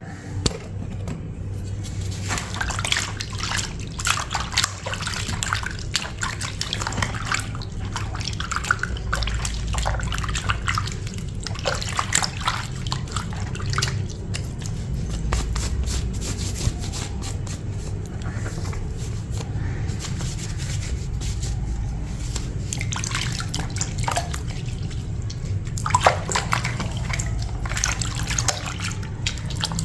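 Water splashing and dripping, with many short knocks and clatters over a steady low hum.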